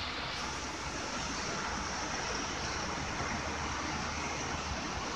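Steady outdoor city noise: an even wash of distant road traffic, with no distinct events standing out.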